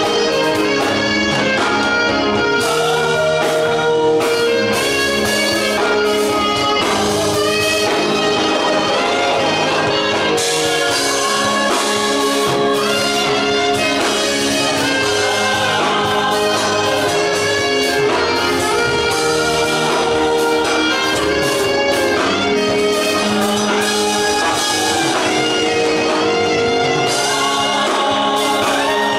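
Worship song played by a band with keyboard and drums, a saxophone carrying the melody.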